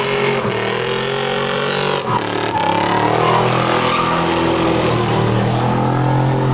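Race car engine revving hard, its pitch rising and falling, with a short drop about two seconds in, over tyres squealing.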